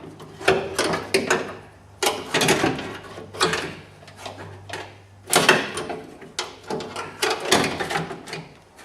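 Irregular metallic clunks, clicks and rattles of a car door latch assembly and its connecting rods being worked into place inside the door shell.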